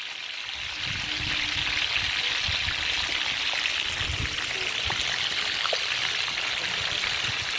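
Fish frying in hot oil in a pot: a steady sizzle with scattered small pops and crackles.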